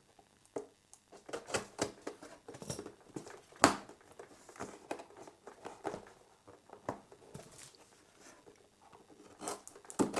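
Hands working at packaging to get it open: irregular rustling, scraping and small clicks, with one sharp click about three and a half seconds in.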